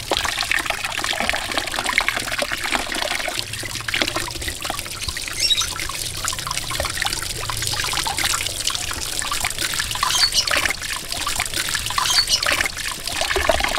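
Running water pouring steadily onto an aloe vera leaf and splashing into a basin of water as the leaf is rinsed and rubbed by hand.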